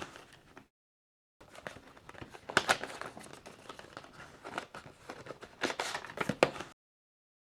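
Packaging crinkling and tearing, with irregular sharp clicks and taps, as NVMe SSD retail boxes are opened by hand. The sound drops out to dead silence briefly about a second in and again near the end.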